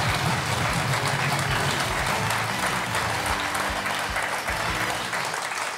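Studio audience applauding over background music with a low, steady beat; the applause eases off near the end.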